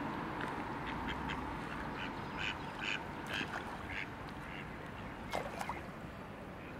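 Mallard ducks quacking: a run of short quacks, about two a second, from about two seconds in, over a steady background hiss.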